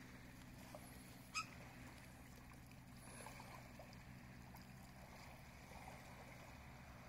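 Near silence at the water's edge: faint lapping of small waves over a steady low hum. About a second and a half in, one short, sharp chirp.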